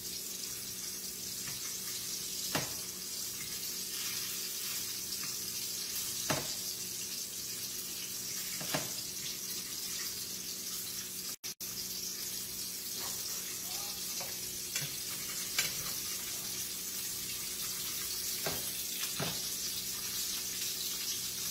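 Salmon fillets searing in hot oil in a frying pan: a steady sizzle, with a few short clicks now and then.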